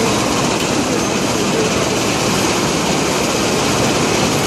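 Steady loud din with indistinct voices mixed into it.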